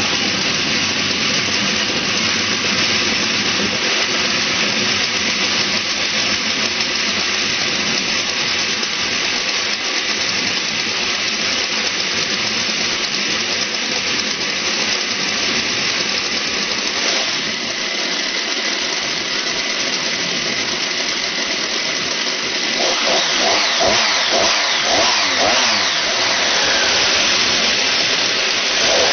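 Two-stroke chainsaw engine on a motorized bicycle running steadily, easing off briefly past the middle, then revving higher and louder over the last several seconds.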